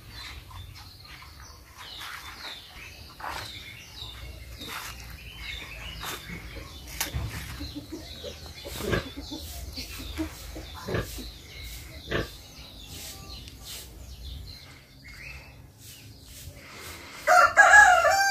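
A rooster crows once near the end, a loud drawn-out call that falls in pitch and is the loudest sound. Before it there are scattered short chirps and clicks with a few sharp knocks.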